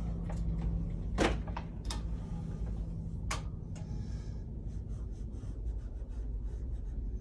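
A few sharp clicks and knocks over a low steady hum, then from about four seconds in, many quick light scratchy strokes of a tool working on a large stretched canvas.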